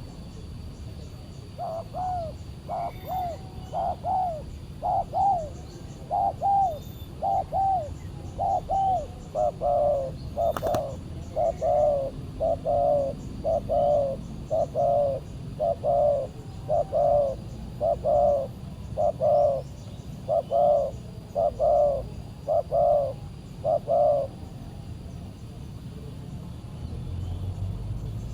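Spotted dove cooing: a long run of short, evenly repeated coos, about one a second, that stops a few seconds before the end. A single sharp click falls about halfway through.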